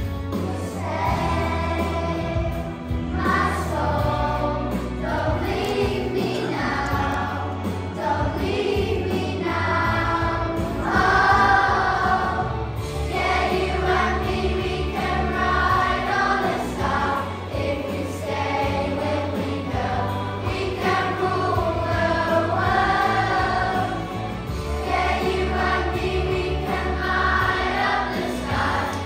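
A group of schoolchildren singing a song together over backing music with a steady bass line.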